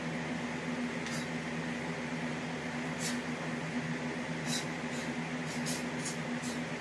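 A steady low electrical hum with room noise, broken by about seven short, sharp hissing swishes as a man throws fast kicks and strikes, clustered closer together in the second half.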